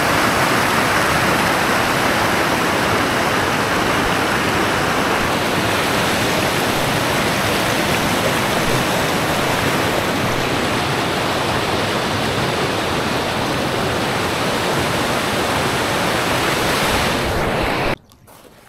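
Waterfall cascading over boulders, heard close up as a steady, loud rush of whitewater. It cuts off suddenly near the end.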